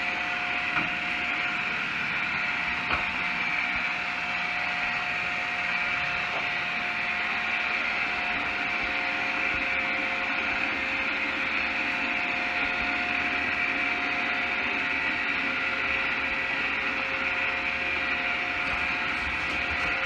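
iRobot Roomba robot vacuum running on a hard floor: a steady whir of its vacuum motor and brushes, with two held tones in it. Two light knocks come in the first few seconds.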